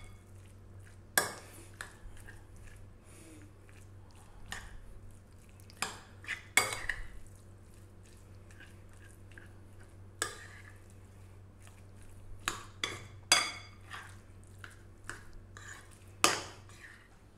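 Metal spoon stirring a soft spinach and ricotta filling in a bowl, clinking and scraping against the bowl at irregular intervals, over a faint low hum.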